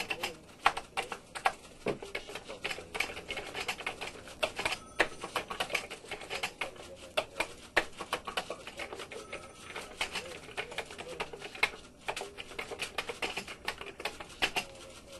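Fast, irregular typing on a computer keyboard: a steady stream of keystroke clicks that stops at the very end.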